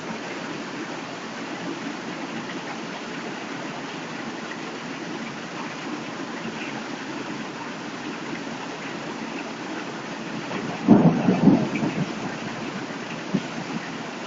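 Heavy rain pouring steadily, with a loud clap of thunder about eleven seconds in that lasts roughly a second.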